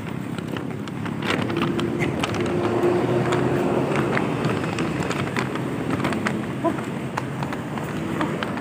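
A person running on a city sidewalk: irregular footfalls and the phone rubbing against his shirt, over passing city traffic.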